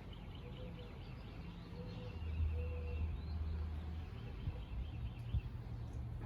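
Faint outdoor ambience: soft high chirping with a low rumble that grows louder about two seconds in.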